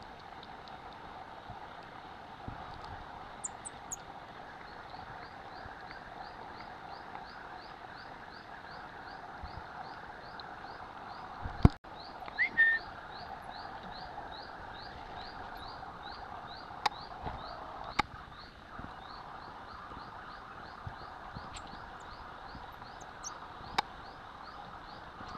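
Outdoor forest ambience: a steady background hiss with a short rising chirp repeating about twice a second, and a few faint high squeaks. A sharp knock about halfway through is the loudest sound, followed by a couple of brief noises.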